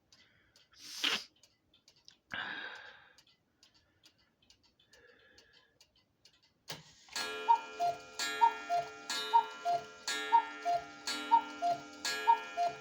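Cuckoo clock striking the hour. After a few quiet seconds of faint ticking and two brief noises, the bellows-driven cuckoo starts about seven seconds in: a high-then-low two-note call about once a second, over a lingering ringing tone.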